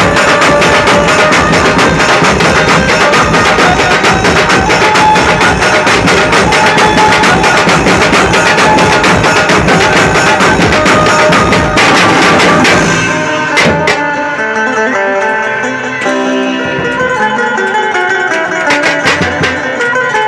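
Dhumal band music blaring through a large speaker rig: a fast drum beat under a melody. About two-thirds of the way through the drums drop out, and the melody carries on with only a few scattered drum strikes.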